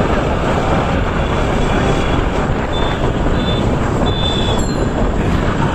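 Steady wind rush on the microphone of a moving Bajaj Pulsar RS200 motorcycle, with its single-cylinder engine running underneath at riding speed.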